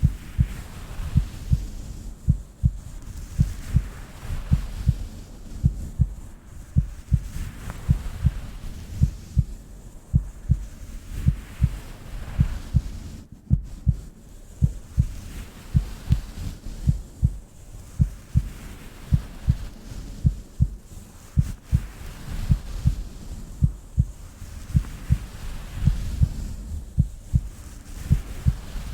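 Heartbeat sounds: steady, regular low thumps, with a soft hiss that swells and fades about every four seconds.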